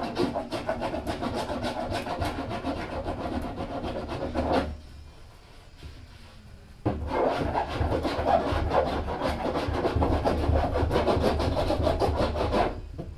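Hand rasp-file scraping in rapid strokes along the cut edge of a barrel, smoothing down the rough edge of the opening. Two long runs of scraping with a pause of about two seconds between.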